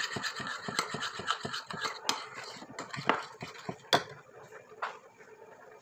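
Sauce being stirred in a bowl, a quick, irregular run of clinks and scrapes of a utensil against the bowl with a few sharper knocks. It stops about four seconds in.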